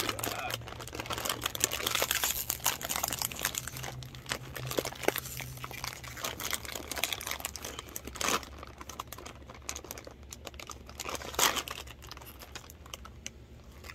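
A plastic snack bag crinkling as it is tugged and pulled open by hand, with two louder crackles about eight and eleven seconds in.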